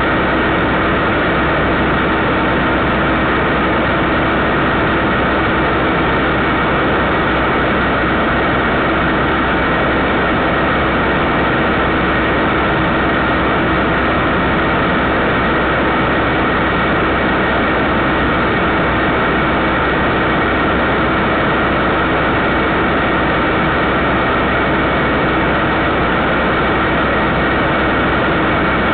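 Steady hiss with a constant low hum and a few fixed tones, never changing; no distinct events.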